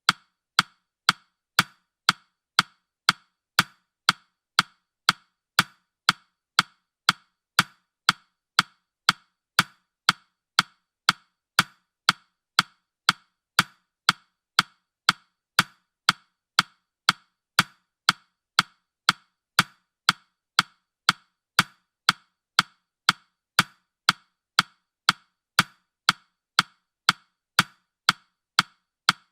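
A countdown timer's ticking: crisp, evenly spaced clock-like ticks, about two a second.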